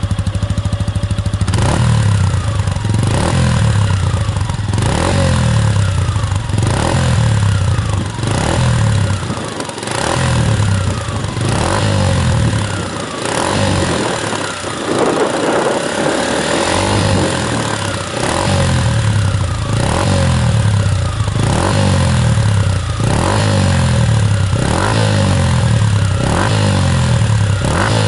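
Suzuki Gixer 150's single-cylinder engine, breathing through a BEAMS CORSA-EVO II stainless full exhaust, idles briefly and is then revved in a long series of quick throttle blips. Each blip rises and drops back to idle, roughly one every second and a half.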